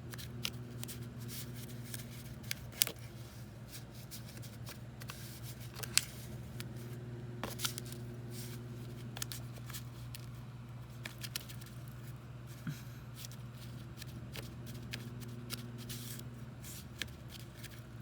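Scattered light clicks and rustling of small plastic pieces and a utensil being handled while mixing a Poppin' Cookin' candy kit's powder with water, over a steady low hum.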